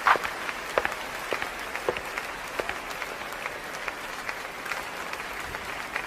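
Audience applauding: a steady patter of many hands with scattered individual claps standing out, after a loud clap at the very start.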